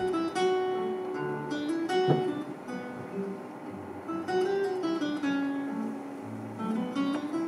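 Solo classical guitar played fingerstyle: a melodic line of plucked nylon-string notes over ringing bass notes, with one sharp, accented pluck about two seconds in.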